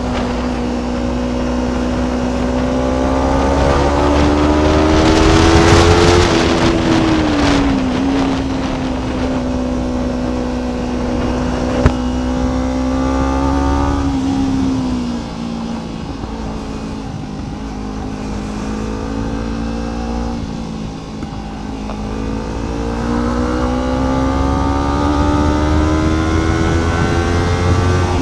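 Kawasaki Ninja 300 parallel-twin engine on the move: it revs up to a peak about six seconds in, drops back and holds a steady cruise, falls lower as the bike slows about halfway through, then climbs again under acceleration near the end. A single sharp click about twelve seconds in.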